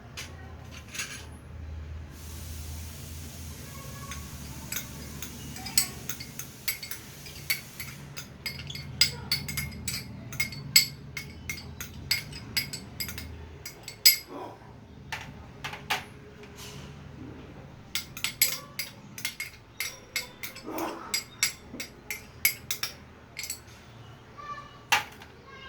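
A spoon clinking and scraping against a bowl again and again as the potato pancake ingredients are put in and mixed, the taps coming in irregular runs. A low steady hum sits under the first half.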